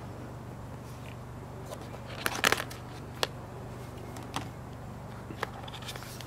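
Hands handling a cardboard phone box and its inner packaging: a short cluster of taps and scrapes about two and a half seconds in, then a few single light clicks, over a steady low hum.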